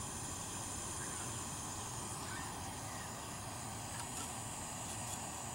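Small screw-on canister gas stove burning with a steady hiss under a metal cup of water that is heating toward the boil. A few light clicks from about four seconds in as the cup's wire handle is moved.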